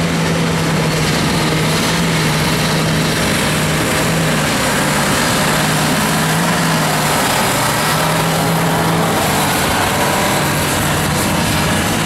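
John Deere 8370R and New Holland T8.435 tractor diesel engines running hard under load as they pull 20-tonne trailers down the track. The engine note is a steady drone that shifts about nine seconds in.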